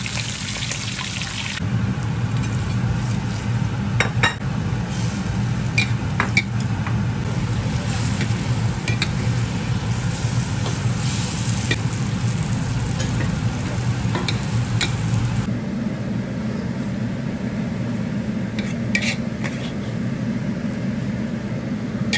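A whole fish sizzling in oil in a wok, with utensils clicking and scraping against the pan, over a steady low hum. The sizzle changes abruptly twice as the cooking moves on to braising the fish in sauce.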